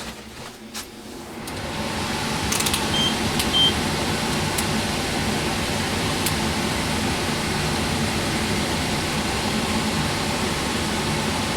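Air handler's blower motor starting up and spinning up to a steady rush of moving air, running with the service panels off. A few sharp clicks, and two short high beeps about three seconds in.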